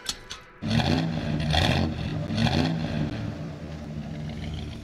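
Two short clicks, then a car engine revved hard several times, its pitch climbing and dropping with each push.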